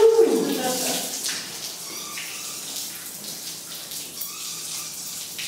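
Whey pouring and splashing out of a cheesecloth bundle of curd as it is drained into a stainless steel trough, a steady watery hiss. A short falling tone sounds right at the start.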